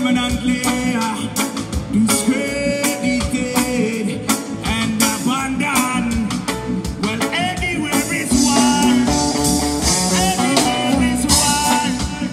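Live reggae band playing: a male lead singer sings over keyboards, guitar and a steady drum beat, with the cymbals brighter from about eight seconds in.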